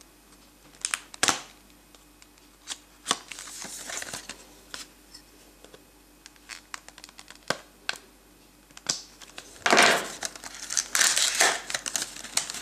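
Packaging being handled and opened: scattered taps and scrapes on cardboard, then from about ten seconds in loud crinkling and tearing as the box and its plastic seal are pulled apart.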